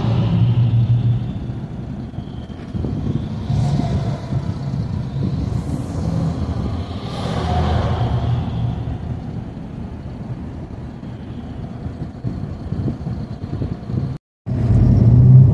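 Steady engine and road rumble heard from inside a moving intercity bus, swelling as trucks pass close alongside: around the start, about 4 s in and again about 8 s in. The sound drops out completely for a moment near the end.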